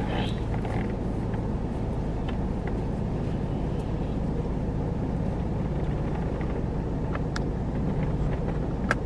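Steady low hum inside a car, with a few faint clicks near the end.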